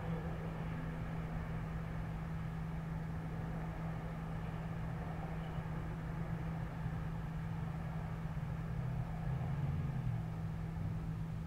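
A steady low hum holding one unchanging pitch, over an even background rumble.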